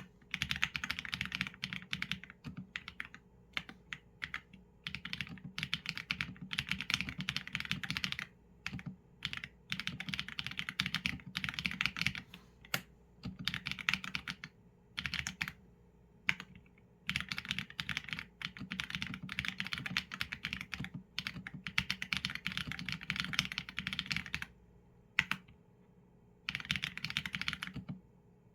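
Typing on a mechanical keyboard with Leobog Graywood v4 linear switches and PBT keycaps: quick runs of keystrokes lasting a second or a few seconds, broken by short pauses, with a few single strokes between the runs.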